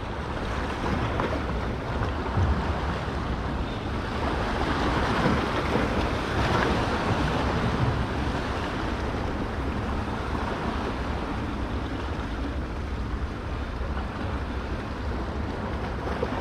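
Sea waves washing and splashing against rocks, a steady rushing with wind buffeting the microphone, swelling slightly midway.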